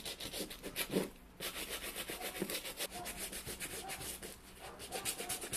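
Suede brush scrubbed in quick back-and-forth strokes over the dried suede of a boot, with a short break about a second in. The brushing raises and cleans the nap after the suede has been washed and dried.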